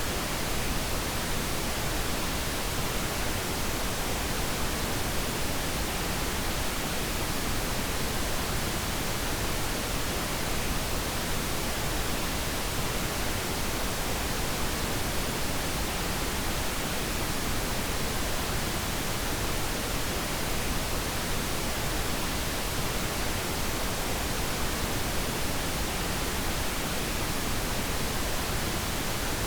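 Steady pink noise played as a sleep sound: an even hiss that does not change.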